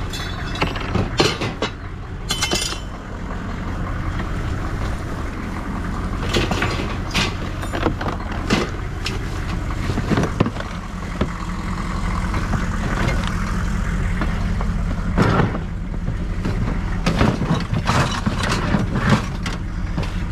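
Truck engine idling steadily while scrap metal clanks and knocks over and over as pieces are picked up and loaded.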